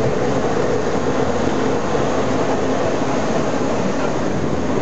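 Steady running noise of an electric rack railcar on the Pilatus cogwheel railway, heard from inside the car: a continuous rumble with a steady hum from the drive.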